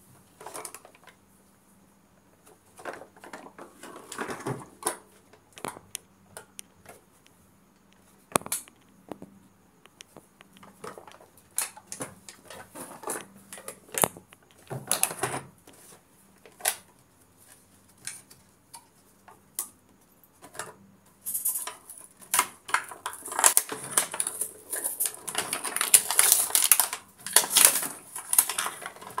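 Clear plastic blister packaging of a toy set crinkling and clicking under the hands in scattered taps, turning into dense, continuous crackling about two-thirds of the way in as the plastic is pulled away from the card to get the toys out.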